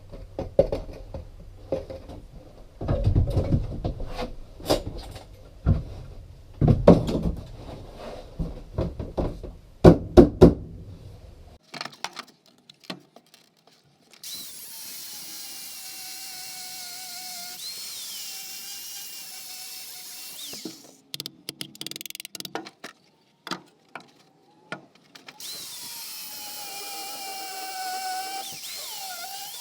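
Irregular heavy metal knocks and clunks for the first dozen seconds, then a handheld electric power tool runs twice, each time with a steady hiss and a whine that wavers in pitch as it works.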